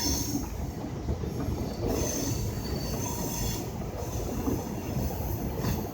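Freight train rolling slowly, at about 10 mph, with a steady rumble of wheels on rail and a faint high wheel squeal coming in about two seconds in and again near the end.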